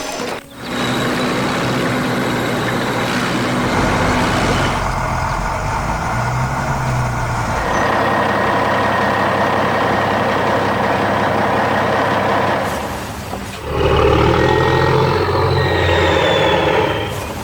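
Heavy truck engine sound effects, running with a noisy hiss, in several stretches that change abruptly about 4, 8 and 13.5 seconds in.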